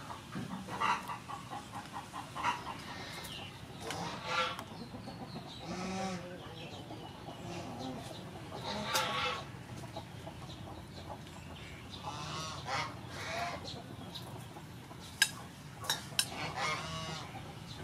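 Chickens clucking on and off, a call every couple of seconds. Near the end come a few sharp clicks of scissors snipping shrimp.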